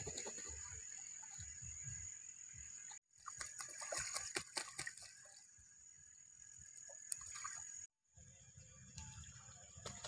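Domestic geese splashing and bathing in a shallow stream, with faint trickling water and a flurry of splashes a few seconds in. The sound cuts out briefly twice.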